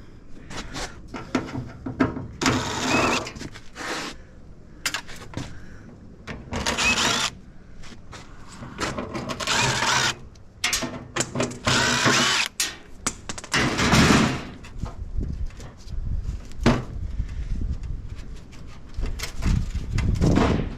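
Cordless drill/driver running in several short runs, backing screws out of an appliance's metal casing, with small clicks and knocks of handling between the runs.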